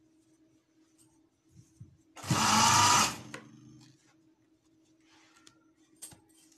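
Electric sewing machine stitching a short run of about a second, then stopping, over a faint steady hum.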